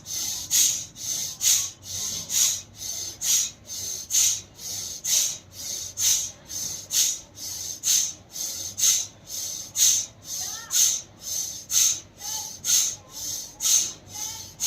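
A woman doing fast, forceful yoga breathing in and out, a sharp hiss with each breath. The breaths come about two a second, alternately stronger and weaker, about one full in-and-out each second.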